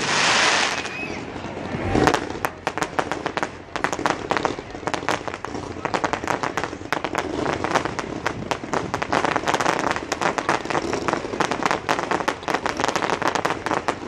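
Fireworks going off: a hissing crackle at the start, a single boom about two seconds in, then fast, dense crackling of many small stars for the rest.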